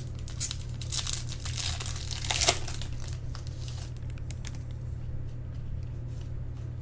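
Crinkling and rustling of a foil trading-card pack and the baseball cards in it being handled. The crackling is busiest in the first three seconds, with one sharper crackle about two and a half seconds in, then turns to fainter rustling over a steady low hum.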